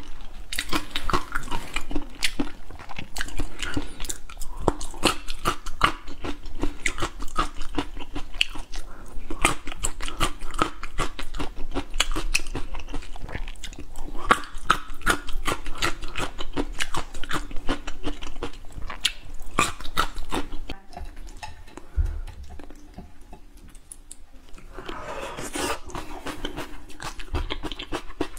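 Close-miked chewing of spicy shell-on seafood, with many crisp crunches and wet chewing sounds. It dies down for a few seconds near the end, then starts again.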